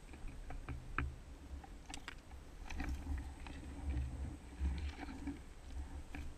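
Footsteps and rustling of grass and leaves while moving through dense undergrowth, with scattered irregular light clicks and low thuds.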